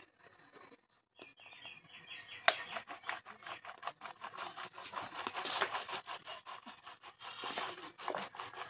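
A wooden stirring stick scraping and knocking in a steel kadai of heating cream over a wood fire. The sound is dense, irregular clicks and scrapes starting about two and a half seconds in, after a near-silent first second and a brief run of faint high chirps.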